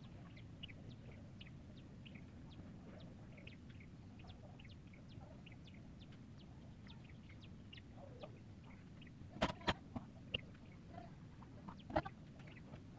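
Birds chirping: many short, high, falling chirps, several a second, over a low steady background, with a few sharp clicks or knocks about three-quarters of the way through and again near the end.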